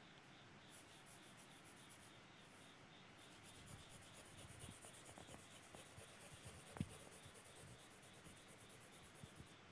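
Graphite pencil sketching on drawing paper: faint, quick scratching strokes repeated many times. A light tap about seven seconds in is the loudest sound.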